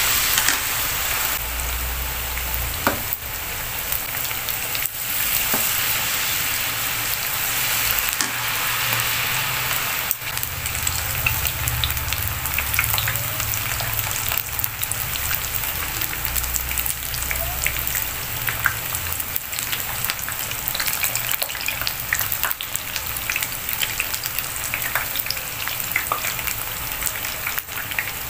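Batter-coated rolled tempe (tempe mendoan) deep-frying in hot oil in a pan: a steady sizzle with fine crackling throughout.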